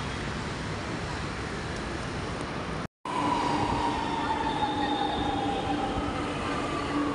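Steady outdoor city noise, then, after a brief dropout about three seconds in, a louder metro train running past at the platform. The train's electric motors give a whine that slowly falls in pitch over a lower steady hum.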